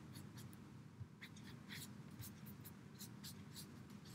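Faint, irregular dabbing and rubbing of a damp kitchen sponge on watercolour paper.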